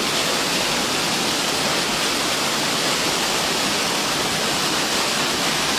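Waterfall: water falling and rushing in a steady, even hiss.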